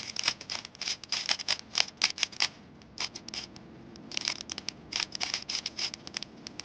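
Rubik's cube layers being turned quickly by hand: rapid runs of light plastic clicks and scrapes, with a short break a little before halfway through.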